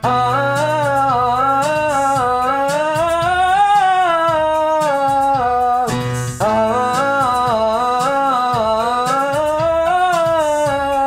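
A man's voice singing a vocal scale exercise on a held vowel, with electronic keyboard accompaniment. The voice climbs note by note and comes back down. He sings two runs: the first peaks a little under four seconds in, and the second starts after a short breath about six seconds in.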